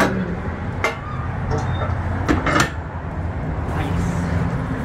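Metal clanks and knocks from a barbecue smoker's firebox as it is loaded with coals: one about a second in, then two close together midway. A steady low rumble runs underneath.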